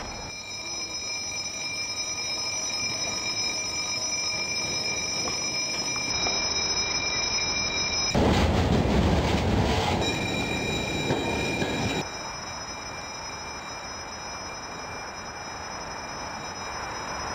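Train approaching with a high, steady multi-tone wheel squeal that grows louder. A loud rush of the train going by comes about eight seconds in, and the train sound cuts off abruptly about twelve seconds in, leaving quieter steady background noise.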